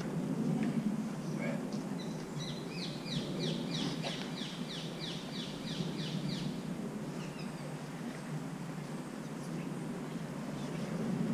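A small bird singing a run of about a dozen quick, identical down-slurred chirps, roughly three a second, over steady low outdoor background noise.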